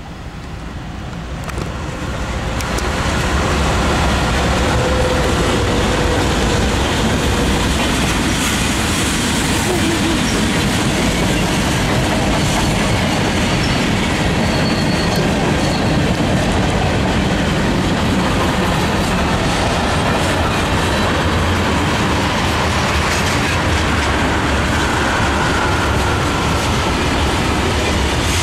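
A freight train led by CSX diesel locomotives passing close by. It grows louder over the first few seconds as the locomotives come near, then holds steady as a long line of freight cars rolls past with continuous wheel-on-rail noise.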